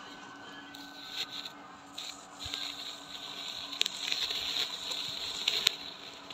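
Soft scraping and rustling close to the microphone, picking up about a second in, with a few sharp clicks near the end.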